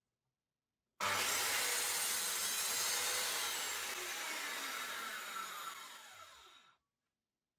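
Bosch GKS 190 circular saw motor and blade running free with no workpiece: starts suddenly about a second in, then winds down with a falling whine after the trigger is released. The sound cuts off suddenly near the end.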